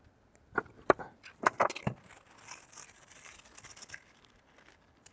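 A few sharp clicks and knocks in the first two seconds, then faint rustling: a screwdriver working at the wire connector of the air fryer's small stirring-arm motor, and tools set down on a wooden tabletop.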